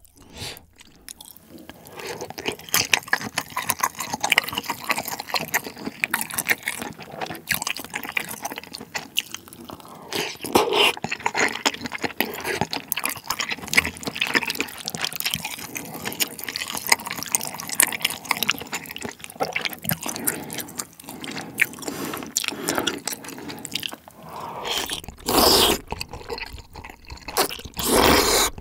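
Close-miked eating of spicy malatang with Chinese glass noodles and dried tofu: wet, sticky chewing with many small clicks and smacks, and two loud slurps near the end.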